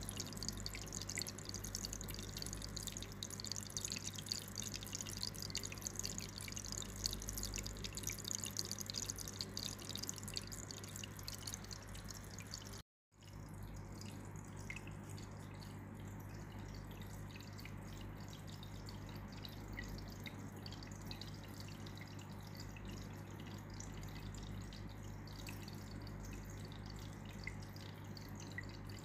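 Small aquarium's water bubbling and trickling over a steady low hum from its aeration or filter. The sound cuts out briefly about halfway through, then goes on with a softer fizz.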